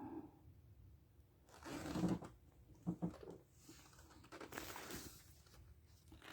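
Faint rustling and scuffing handling noises in a few short bursts, with low room hiss between them.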